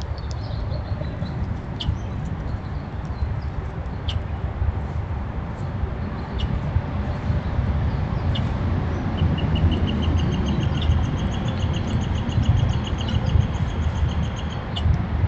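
A steady low rumble underneath, with a few short, sharp bird chips scattered through. From about nine seconds in, a bird sings a fast, even trill of many short notes for five or six seconds.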